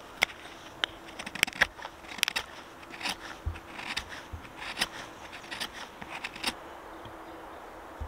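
Irregular sharp snaps and crackles of a campfire being got going, stopping about six and a half seconds in.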